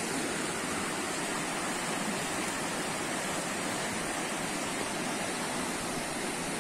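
River water rushing over shallow rapids: a steady, unbroken rush of a fast, swollen river.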